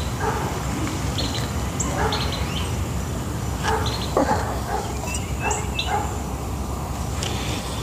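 Hot water poured in a thin stream from a steel pot onto ground coffee in a mesh pour-over filter, stopping partway through. Short animal calls come at irregular moments in the background.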